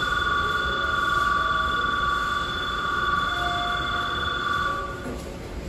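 Railway platform departure bell: a steady electronic ring on two close high pitches, sounding as the train is about to leave and stopping about five seconds in.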